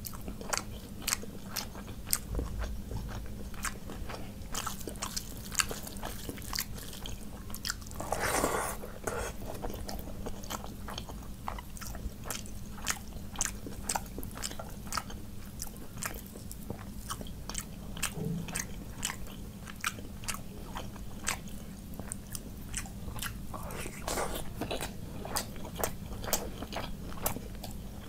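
Close-miked eating: a person chewing and biting mouthfuls of rice and curry, with many sharp mouth clicks, lip smacks and crunches. About eight seconds in there is one longer, louder mouthful. A faint steady hum runs underneath.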